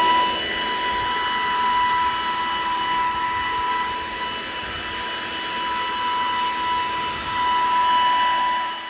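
Makita XGT 40V brushless cordless leaf blower running at steady speed: a high, even fan whine over the rush of air, dipping a little midway and swelling again near the end.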